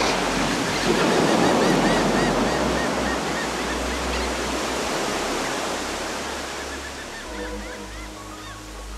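Ocean surf breaking and washing up a beach, a steady rush that slowly fades, with faint high chirps in the first few seconds. Music with held notes fades in near the end.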